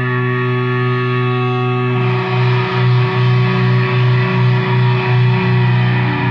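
Distorted, effects-laden guitar holding loud droning notes. About two seconds in the sound turns rougher and starts pulsing a little over twice a second.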